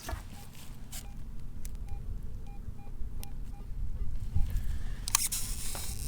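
Metal detector giving a string of short electronic beeps at two pitches while a target is being located in the ground. About five seconds in there is a burst of scraping noise.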